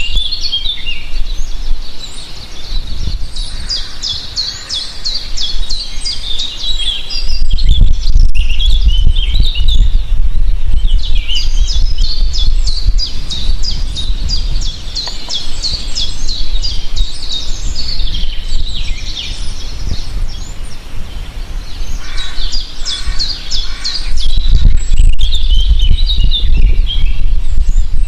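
Many small birds chirping and singing at once, a dense chorus of rapid high chirps and trills with no break. A low rumble swells in about a quarter of the way through and again near the end.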